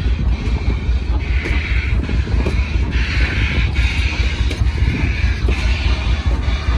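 Grand Canyon Railway passenger cars rolling slowly past on the rails, their wheels clacking over the rail joints, with a higher hiss that swells and fades a few times. Wind rumbles on the microphone.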